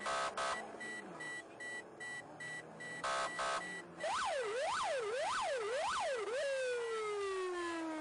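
Police patrol car siren: a short double blast at the start and again about three seconds in, then a fast rising-and-falling wail for about two seconds that turns into one long falling tone, winding down. A rapid high-pitched beeping runs underneath through the first half.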